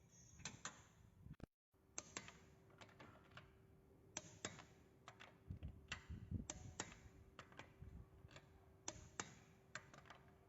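Faint, irregular clicking, often two clicks close together, over a faint steady hum.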